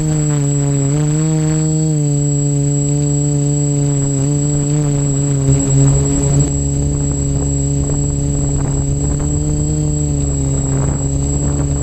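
OFM Seeker 450 quadcopter's electric motors and propellers running at low throttle, a steady buzzing hum with a slight wobble in pitch, heard up close from the GoPro mounted on the frame.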